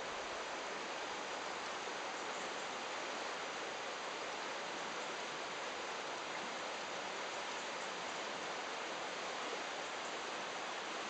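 Steady rushing of the Gave river's current, an even wash of flowing water.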